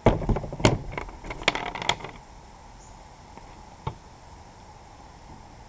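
Tools being handled on a work surface: a clatter of clicks and knocks that starts suddenly and lasts about two seconds, then a single click a little later.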